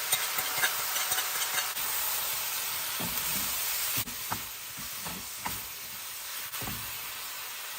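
Ground beef and vegetables sizzling in a hot pan as they are stirred, with a utensil clicking against the pan in the first couple of seconds. The sizzle drops a little about four seconds in.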